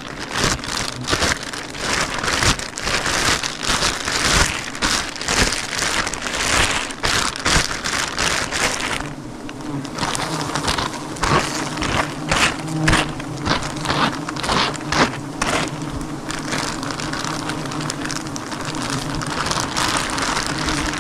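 Giant honey bees buzzing in a steady low hum that becomes plain from about halfway, over a dense run of crackles and rustles from the comb and brush being handled.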